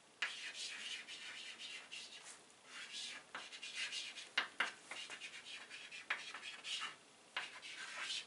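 Chalk writing on a blackboard: a run of short scratching strokes, with a few sharp ticks of the chalk against the board.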